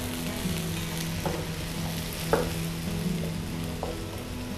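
Chicken and chopped onions sizzling in a frying pan as a wooden spatula stirs them, with a few light knocks of the spatula against the pan.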